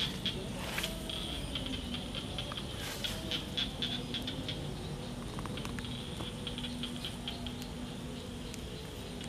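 Outdoor field ambience: many short, high chirps, a few a second and irregularly spaced, over a faint steady low hum.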